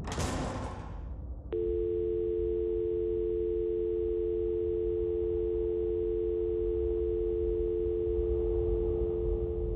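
A short rush of noise, then, about a second and a half in, a telephone dial tone starts: a steady, unbroken pair of tones held without a break.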